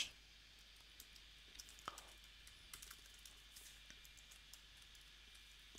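Faint computer keyboard typing: a few scattered single keystrokes at an irregular pace, one a little louder about two seconds in.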